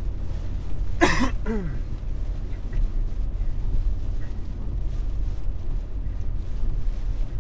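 A man belches once about a second in, a short rough burst that falls in pitch, from an upset stomach. Under it runs the steady low rumble of a car cabin on the road.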